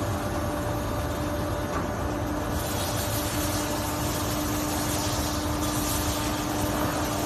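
PVC shoe injection moulding machine running with a steady hum. A steady high hiss joins about two and a half seconds in.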